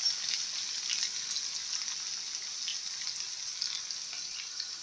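Sliced onions sizzling in hot oil in a frying pan: a steady high hiss with faint scattered crackles. The onions are still raw and pale, early in the frying.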